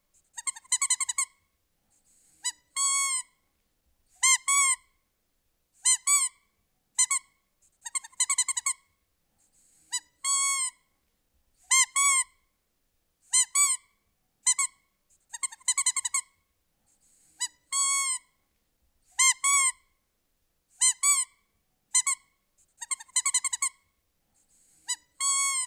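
A squeaky toy squeezed over and over: short, high squeaks that bend in pitch, coming singly or in quick pairs about once a second, with silent gaps between.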